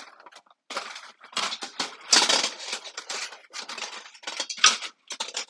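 Thin panels of a folding aluminium windscreen rattling and clinking in quick, irregular bursts as they are unfolded and fitted around a gas grill.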